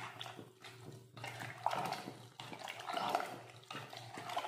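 Ladle stirring thin sambar of bottle gourd, tomato and dal in an open pressure cooker, the liquid sloshing and swishing in a few swells.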